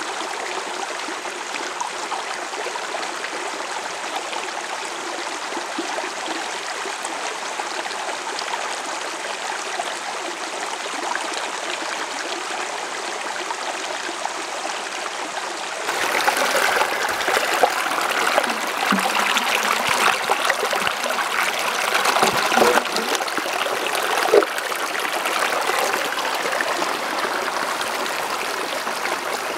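Small mountain creek trickling and splashing over rocks, a steady rush of water. About halfway through it becomes louder and brighter, with uneven gurgles.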